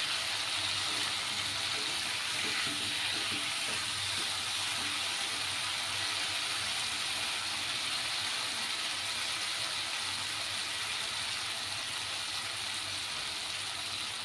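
Taro pieces and spice paste sizzling steadily in oil in a wok as the masala is fried down, with a splash of hot water in it.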